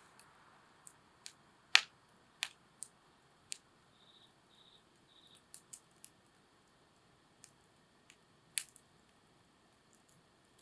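Wood campfire crackling: irregular sharp pops and snaps over a faint hiss, the two loudest pops about two seconds in and two seconds before the end.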